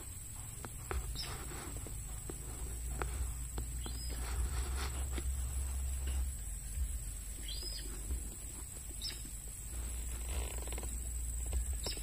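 Wild birds chirping: short, high calls repeating every one to three seconds, about five in all. A steady high-pitched whine and a low rumble run under them.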